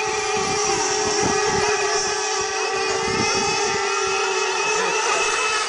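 Radio-controlled racing boats' small engines running flat out, a steady high-pitched buzz that holds without a break while the boats race across the water.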